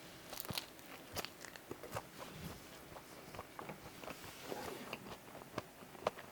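Close-up eating sounds of a person biting and chewing a hot dog: scattered soft crunches and wet mouth clicks.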